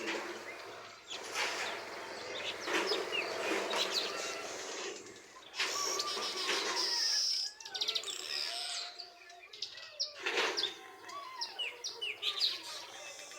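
A colony of weaver birds chattering: many short chirps and whistles overlapping throughout, with a few louder stretches of rustling noise.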